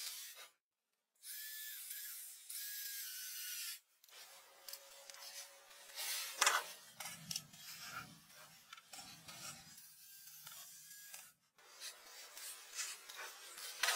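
Scraping and rubbing sounds with scattered sharp knocks, broken off abruptly a few times.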